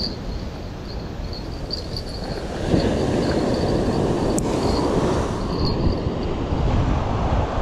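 Wind buffeting the microphone over the wash of breaking surf, gusting louder about three seconds in, with the faint ticking of a spinning reel being cranked.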